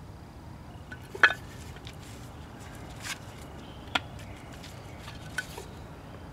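Four short, sharp clicks and knocks from handling a wood-glue squeeze bottle and wooden picture-frame pieces, the loudest about a second in, over steady low background noise.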